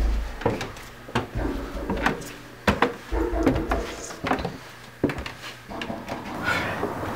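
Footsteps and knocks on a wooden staircase: a run of irregular sharp taps with a few dull thuds.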